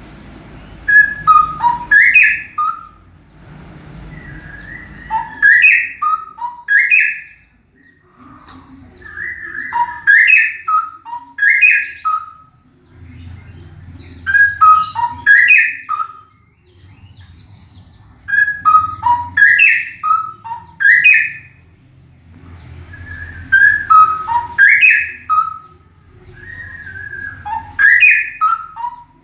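Male straw-headed bulbul (cucak rowo) singing loudly: about seven rich, bubbling phrases of quick sliding whistled notes, each about two seconds long, repeated every four to five seconds. A faint low rumble sits underneath.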